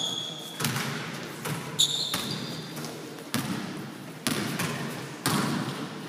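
Basketball bouncing on a gym floor as a player dribbles, a handful of irregularly spaced thuds that echo briefly in the hall. A short high squeak comes about two seconds in.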